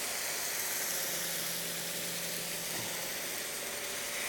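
Onion-tomato masala sizzling steadily in a non-stick pan, stirred with a spatula, just after a splash of water has been added to it.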